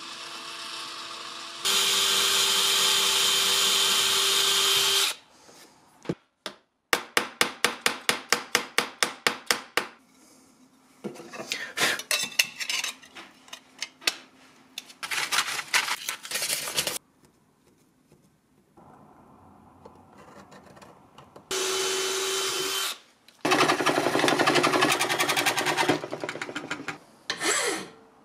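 Metalworking on brass in a sequence of short shots. An electric drill runs steadily for about three seconds, followed by a quick run of even hand-tool strokes, about four a second, and then irregular scraping. The drill runs again briefly, and near the end a hand file rasps across a brass part held in a vise.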